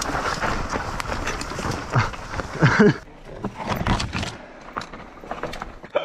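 Mountain bike tyres rolling and skidding down a steep, sandy dirt trail, with two short vocal grunts about two and three seconds in. Then a few sharp clicks and knocks as the bike slows and stops.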